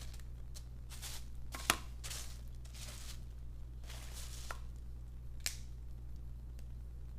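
Blue crab legs and shell being cracked and pulled apart by hand: a string of short crackling, scraping sounds with two sharp snaps, the loudest about a second and a half in.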